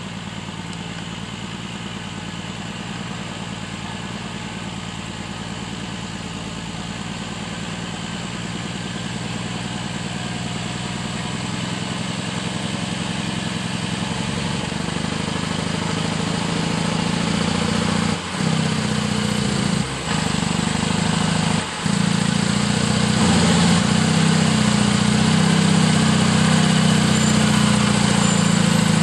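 Log truck engine running steadily and growing gradually louder, with three brief drops in sound about two-thirds of the way through.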